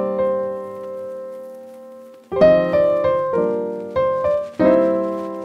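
Background piano music: a held chord fades away, then a new phrase of struck notes begins a little over two seconds in.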